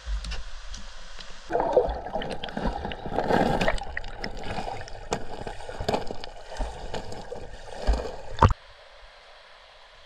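Stream water gurgling and sloshing, with small splashes, starting about a second and a half in and cutting off suddenly near the end.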